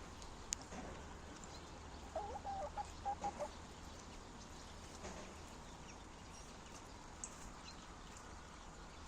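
A chicken clucking: a quick run of about six short notes a couple of seconds in, over a steady low background hum. A single sharp click comes near the start.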